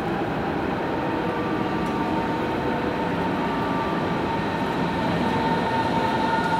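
Berlin S-Bahn class 481 electric train approaching along the platform: a steady electric whine over rolling noise, growing a little louder near the end.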